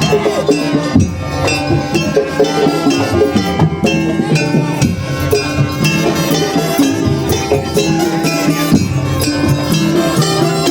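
Madurese daul ensemble playing: drums and percussion with a melody that slides up and down in pitch.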